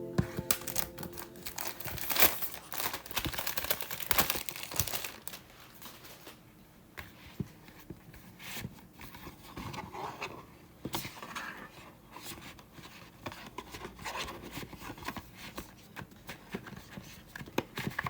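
Handling of a DVD case and cardboard slipcase: crinkling and a quick run of clicks and rustles for the first few seconds, then scattered clicks and scrapes, with a sharp click near the end.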